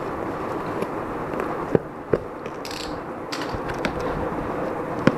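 Box cutter slitting the packing tape on a cardboard parcel, then the cardboard flaps being pulled open, with a few sharp clicks and a short scraping rasp.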